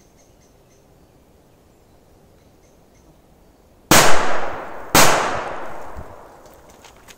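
Firecracker going off twice on a tree stump: two sharp bangs about a second apart, each fading away over roughly a second. The first bang is the loudest.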